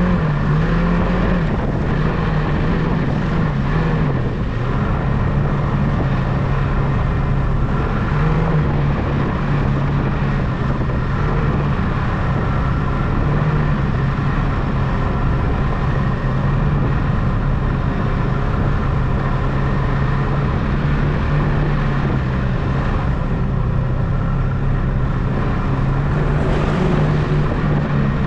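Snowmobile engine running steadily under way, its pitch wavering slightly with the throttle, over a constant rush of noise.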